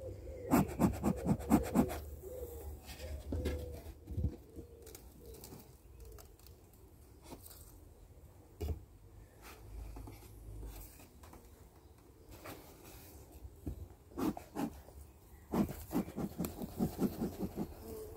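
Bellows bee smoker pumped in a quick run of about half a dozen puffs, and another run near the end, with a few quieter knocks from hive parts being handled in between.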